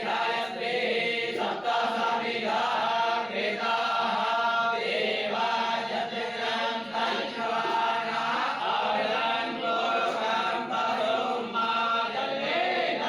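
A group of voices chanting together in unison, a continuous sung recitation.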